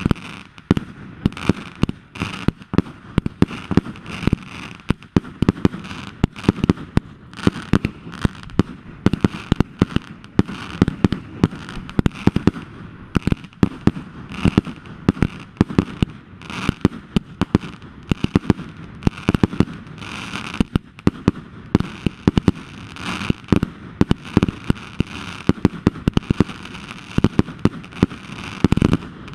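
Fireworks going off in a rapid, continuous run of sharp bangs and crackles, many each second, with no pause.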